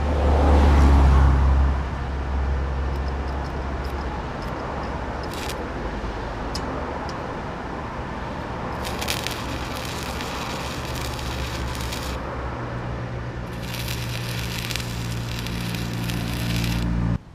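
Stick (MMA) welding arc with 2 mm electrodes crackling and sizzling in two runs of a few seconds each, the first past the middle and the second near the end, as a hinge is welded in a second layer onto a gate post. A low rumble of a passing vehicle is loudest in the first couple of seconds.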